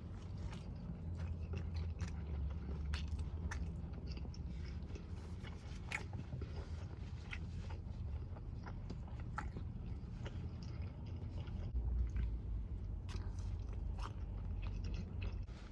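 A person chewing food close to the microphone, with irregular small clicks and mouth sounds over a low steady hum.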